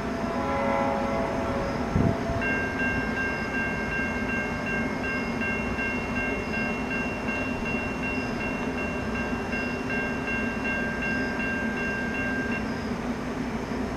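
Distant horn of an approaching NJ Transit commuter train, Comet V cab car leading, sounding a chord of several notes held in one long blast of about ten seconds, starting about two seconds in. A low rumble runs beneath it, and there is a single thump just before the horn begins.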